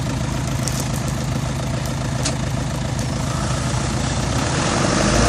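Heavy engine of the earthmoving machinery running steadily at low revs, with a few light clicks. It picks up and grows louder near the end.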